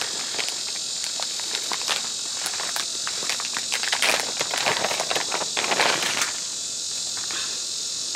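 A plastic packaging bag crinkling and rustling as it is pulled and torn open by hand, loudest in the middle, over a steady high drone of insects.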